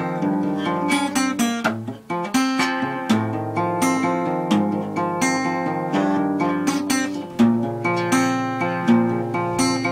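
Acoustic guitar playing an instrumental passage of picked notes and strummed chords, with a brief break about two seconds in.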